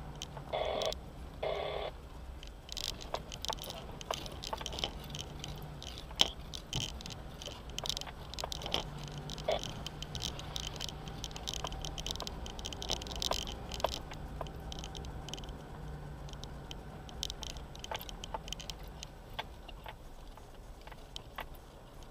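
Off-road vehicle driving over a gravel track, heard from inside the cab: a steady low engine drone under constant rattling and clicking as the cabin and loose items shake over the bumps.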